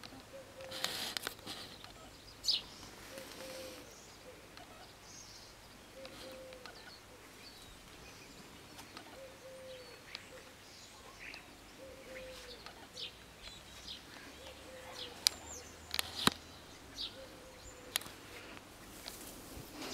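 Garden birds chirping, with short high calls scattered throughout and a low note repeated about every second and a half. A few sharp clicks are heard near the end.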